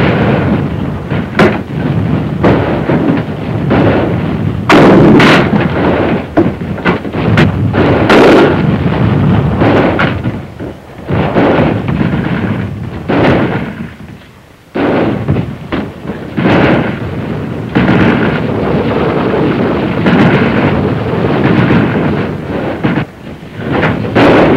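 Battle gunfire: a dense, irregular run of shots and heavier blasts, easing off briefly about two-thirds of the way through.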